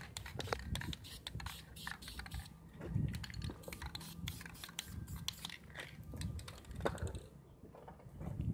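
Rapid, irregular crackling clicks from hands working the wet paint, dense for most of the stretch and thinning near the end, over a low rumble of wind on the microphone.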